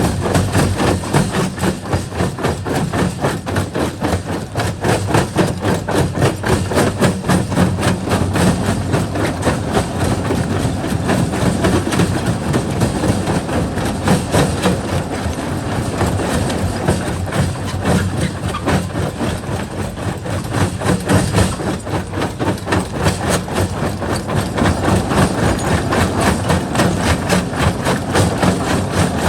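Jaw rock crusher running and breaking rock: a continuous fast clatter of knocks and cracks over the steady drone of the machine.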